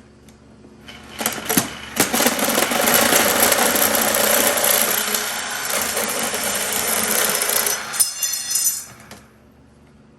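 A power tool running hard on metal for about eight seconds, starting about a second in and cutting off near the end.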